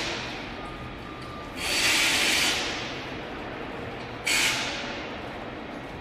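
A cardboard box rolling down the steel rollers of a gravity spiral conveyor, heard as a rushing hiss over a steady background noise. It swells sharply about a second and a half in and again a little after four seconds, fading after each rise.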